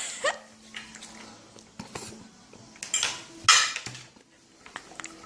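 A dog eating from a dish: the bowl clinks and clatters, with a few short, louder noisy bursts about three seconds in.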